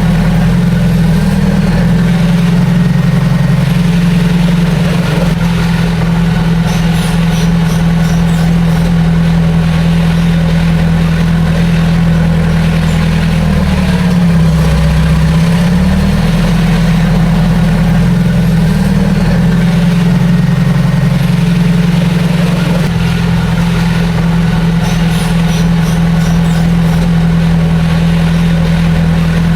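Heavy diesel engine of an earthmoving machine running steadily at a constant pitch. About halfway through it briefly drops in pitch, as under load, then recovers.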